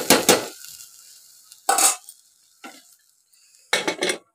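Steel spoon stirring and scraping dal frying in masala oil inside a steel pressure cooker, with a sizzle. A quick run of strokes opens, the sizzle dies down, then one burst of stirring about two seconds in and a few more strokes near the end.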